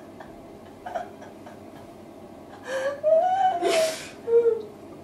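Women laughing: quiet breathing at first, then about three seconds in a breathy gasp, a high drawn-out laugh that rises and falls, a loud breathy gasp and a short squeak.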